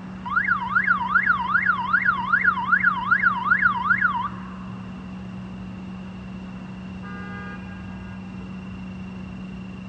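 Electronic siren in yelp mode, its pitch swinging rapidly up and down about two to three times a second, cutting off about four seconds in. A steady low hum carries on afterwards.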